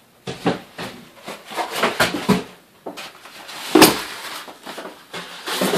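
Cardboard box and packaging being handled and moved: a run of irregular scrapes and rustles, the loudest about four seconds in.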